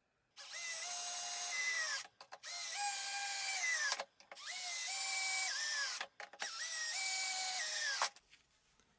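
Electric drill run in four short bursts of about a second and a half each, every one speeding up, holding a steady whine, then dropping in pitch before it stops.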